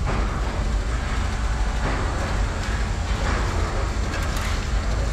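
Steady low mechanical rumble of workshop machinery, with a few swells of hissing noise.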